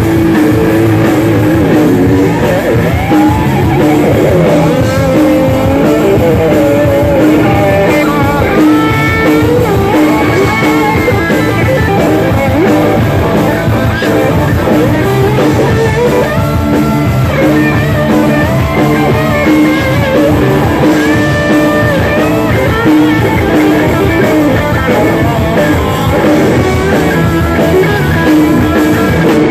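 Live rock band playing loudly, led by several Les Paul-style electric guitars over a drum kit, with gliding lead-guitar notes that bend in pitch.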